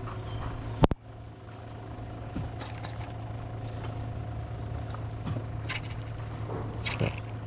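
Small fishing boat's motor running at a steady drone, with one sharp knock just under a second in and a few faint short knocks later.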